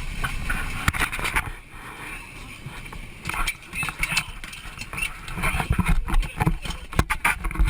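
Noise inside a small passenger plane's cabin as it goes down toward the ocean: rushing, uneven noise with knocks and clicks and indistinct voices.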